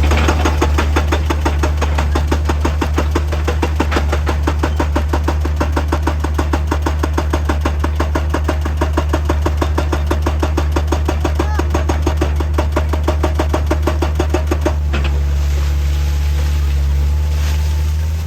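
Heavy machinery working: a steady low engine drone with a rapid, regular pounding of several strikes a second that stops about 15 seconds in, leaving the engine running on.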